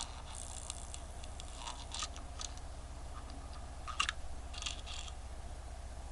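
Scattered light clicks and taps of a small wristwatch being worked by hand with tools while trying to free its stuck hands, the sharpest click about four seconds in, over a steady low hum.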